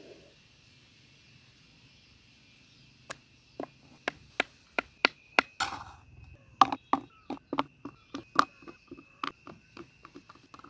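A run of sharp knocks or chopping taps, irregular at about two a second, beginning about three seconds in, over a faint steady high-pitched tone.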